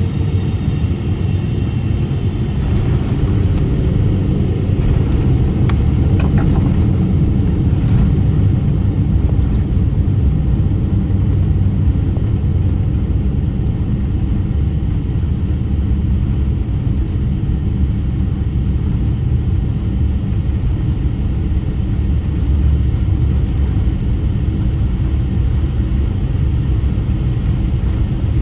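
Cabin noise of a Boeing 777-300ER landing: a steady deep rumble of its GE90 engines, airflow and, once down, the wheels on the runway. There is a spell of light rattles and knocks from about three to eight seconds in.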